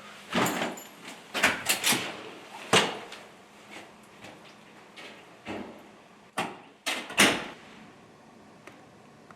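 Cupboard doors and drawers being opened and shut: a run of separate knocks and bangs with short scrapes, the loudest about seven seconds in.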